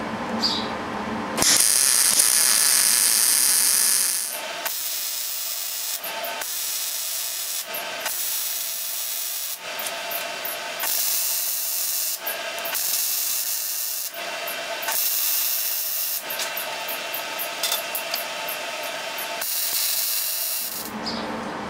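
Wire-feed welder arcing in a series of separate bursts, each a steady crackle of one to three seconds with short breaks between: about eight rosette (plug) welds being laid through the holes of a steel plate.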